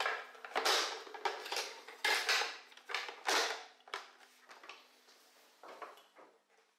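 Hard plastic scraping and clicking as the filter head of a Tetra EX 800 Plus canister filter is seated on the canister and its side locking clips are worked shut. It comes as a string of short scrapes and knocks that grow quieter over the last couple of seconds.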